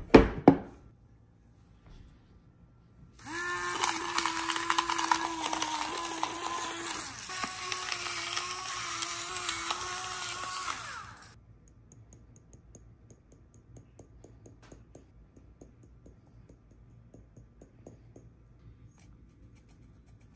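A couple of sharp knocks right at the start. A few seconds in, a small electric kitchen appliance motor starts up and runs steadily for about eight seconds, sagging briefly in pitch about halfway through, then cuts off suddenly.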